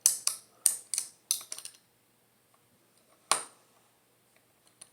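Small plastic Lego pieces clicking and clattering as they are handled: a quick run of sharp clicks over the first couple of seconds, then one more click a little after three seconds in.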